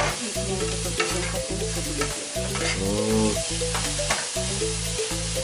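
Sliced onions sizzling in oil in a nonstick frying pan while a utensil stirs them, with repeated short scrapes and taps against the pan.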